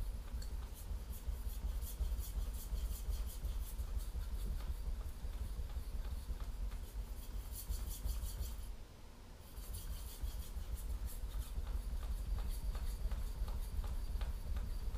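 Steel kitchen knife blade being stroked back and forth on a hard natural Chinese whetstone, making a steady rhythmic scraping. The strokes stop briefly about nine seconds in, then go on.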